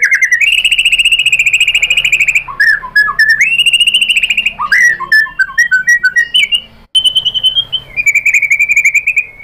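White-rumped shama singing loudly: long, fast, buzzy trills held near one pitch, broken up by runs of quick, varied whistled notes. The song stops for a moment about seven seconds in, then the trilling resumes.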